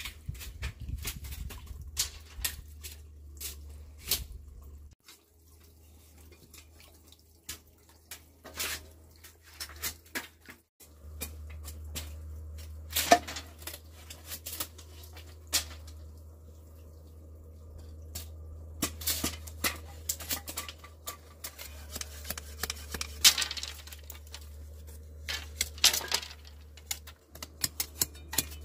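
Scattered light knocks and clicks at irregular times, over a low steady hum.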